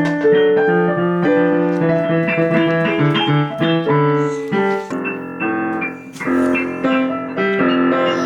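Background music: piano playing a steady run of chords and notes.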